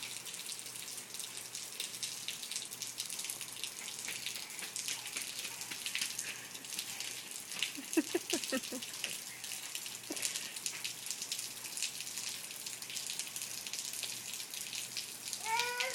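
Steady rain falling and splashing on hard surfaces, a continuous hiss dotted with many small drop ticks. A brief voice-like sound comes about halfway through, and a rising vocal sound near the end.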